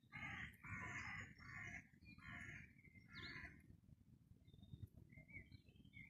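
Jackdaw calling: five harsh caws in quick succession over the first three and a half seconds, followed by faint chirps of small birds.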